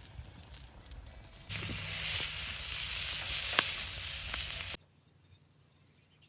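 Food sizzling in a hot pan, starting about a second and a half in, with a couple of sharp pops, and cutting off suddenly about three seconds later.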